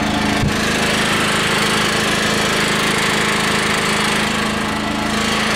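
Small portable gasoline generator running steadily with an even engine hum, heard with the lid of its wooden enclosure box open. A single knock sounds about half a second in.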